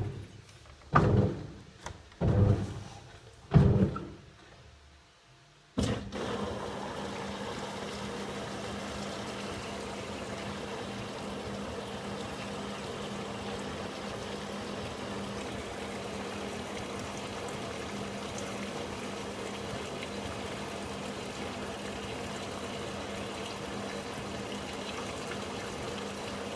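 A few heavy thuds in the first four seconds. About six seconds in, a click, then water rushing steadily into a Samsung 7.5 kg washing machine with a low steady hum underneath: the inlet valve filling the drum at the start of a cottons wash.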